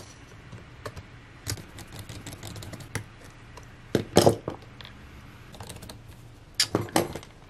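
Scattered light clicks and taps of fingers pressing cable connectors and parts into place on a MacBook Air logic board in its aluminium case, with louder clusters about four seconds in and again near the end.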